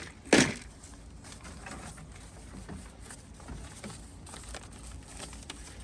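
Small metal badges and buttons being handled and shuffled: a brief louder handling noise just after the start, then faint scattered clicks and rustling.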